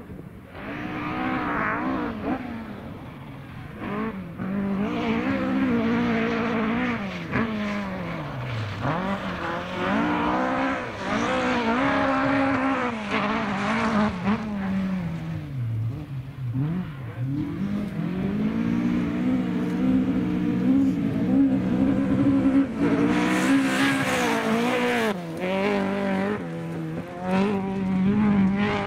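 Rally car engines driven hard on a gravel stage, revving up and dropping back at each gear change. The engine note falls low twice, about a third of the way through and again past the middle, then climbs back as the car pulls away.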